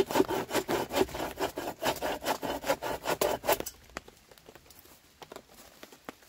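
Rapid, even back-and-forth strokes of a hand saw cutting wood, about four to five strokes a second, stopping abruptly about three and a half seconds in. Faint scattered ticks follow.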